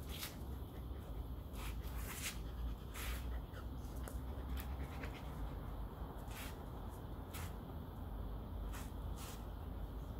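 A grooming brush drawn through a Shetland sheepdog's thick double coat: about ten short swishing strokes at uneven intervals, over a steady low background rumble.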